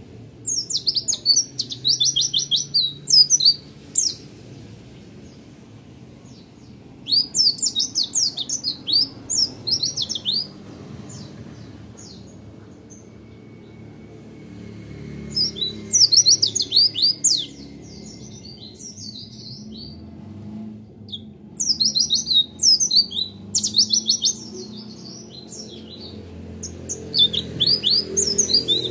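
Caged white-eye (pleci) singing in about five rapid bouts of fast, high chirps and trills, each lasting two to three seconds, separated by short pauses. This is the quick, rolling, rapid-fire song style that keepers call 'roll tembak'.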